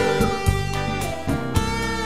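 Instrumental passage of a song: guitar over a bass line, with a steady beat.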